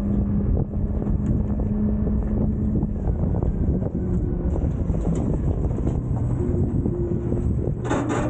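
Front-load garbage truck running, a steady engine rumble and low hum, with wind buffeting the microphone. A couple of sharp knocks sound near the end.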